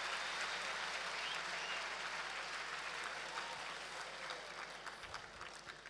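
A large audience applauding, the applause slowly fading and thinning to scattered separate claps near the end.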